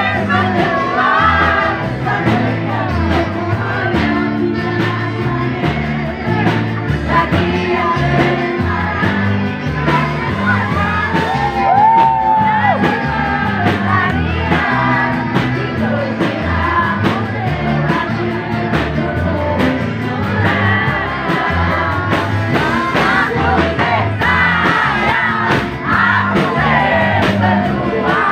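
Loud live band music with a steady bass beat and singing, heard from inside a packed crowd, with shouts and yells from the crowd.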